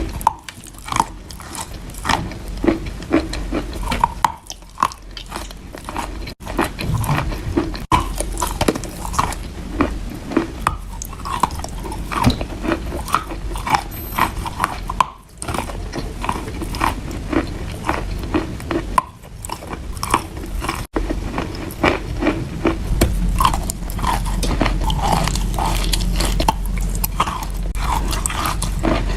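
Close-up crunching and chewing of wet chalk being bitten: many sharp, irregular crunches one after another, with soft wet chewing between them.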